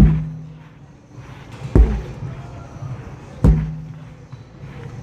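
Sledgehammer striking a large rubber tire three times, about 1.7 seconds apart. Each blow lands with a deep thud followed by a brief low ring.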